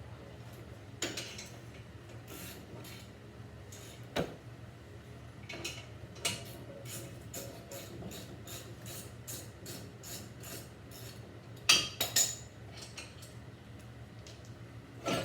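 Irregular metallic clinks and rattles of hand tools being handled, with a louder cluster of clinks about twelve seconds in, over a low steady hum.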